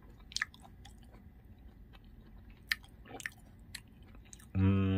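A man chewing a mouthful of raw halfbeak sashimi, with a few soft wet clicks of the mouth, then near the end a short steady hum from him.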